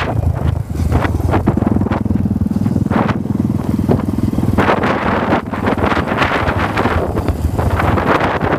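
Dirt bike engine running at low speed, heard from on board the bike, with wind buffeting the microphone in gusts.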